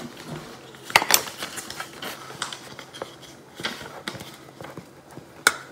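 Kitchen utensils clinking and scraping against a mixing bowl as brown sugar is added to the crisp topping, with a sharper clink about a second in and another near the end.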